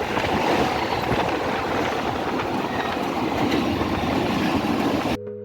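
Passenger train running along the track, a steady noise that cuts off suddenly near the end as music begins.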